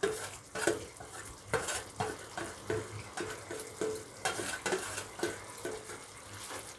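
Metal slotted spatula scraping and clinking against a steel plate and the pan as boiled taro pieces are pushed off into the gravy, repeated strokes about two a second. Under the strokes the gravy sizzles faintly in the pan.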